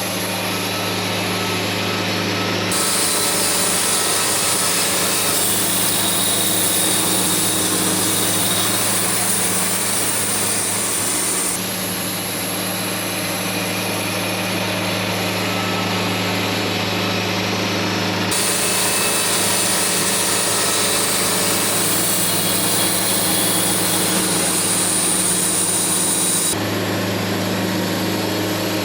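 A small engine running at a steady speed. Twice, for about eight or nine seconds each time, a loud hissing cutting noise rises over it and then stops.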